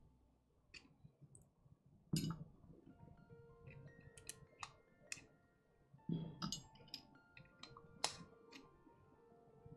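Scattered light clicks and two louder knocks, about two seconds in and again about six seconds in, from small hard keyboard parts and tools being handled on a desk, over faint background music.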